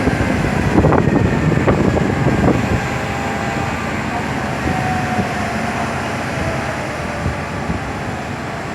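Steady rumble of vehicles on a city street, with a few sharp knocks in the first three seconds.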